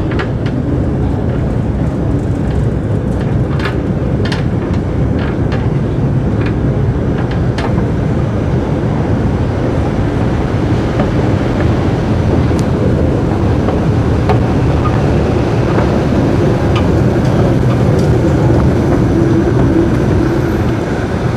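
Steady low rumble of a long metro-station escalator running while being ridden upward, with a few light clicks in the first several seconds.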